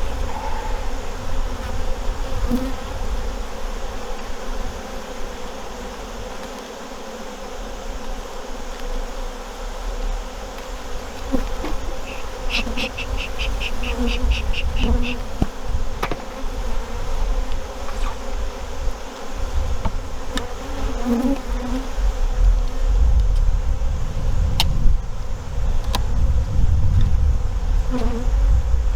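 Honey bees buzzing around an opened hive: a steady hum with single bees droning past close by. A few sharp clicks, and about halfway through a short run of fast, high ticks, about four a second.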